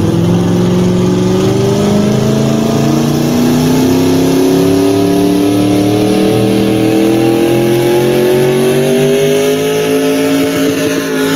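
Pulling tractor engine running hard through a pull in the 6,000 lb class, its pitch climbing slowly and steadily as it hauls the sled down the track.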